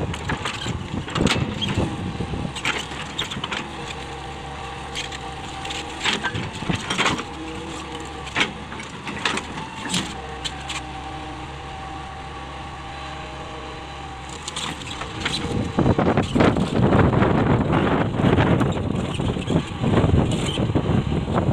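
Hitachi 200LC hydraulic excavator running steadily, with scattered sharp knocks and clatter. It gets louder and rougher for the last several seconds.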